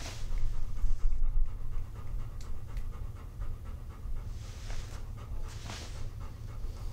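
A golden retriever panting, soft breaths over a steady low background hum.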